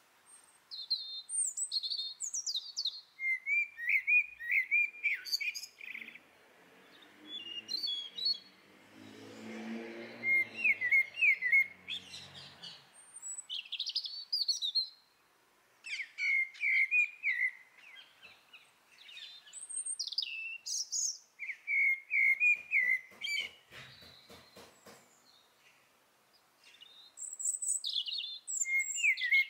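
Songbirds singing in short phrases of quick, high chirps and trills, with pauses between phrases. A low hum swells and fades midway through.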